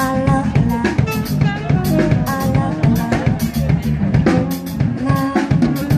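Live band playing an instrumental passage: a drum kit beat with bass drum and snare hits, under electric bass, electric guitar and saxophone lines.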